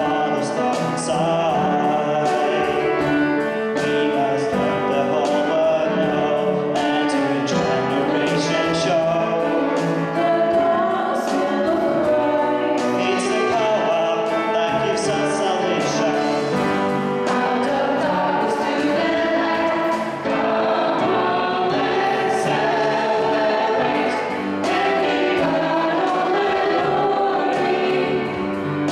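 Youth choir singing a song in several voices, with band accompaniment.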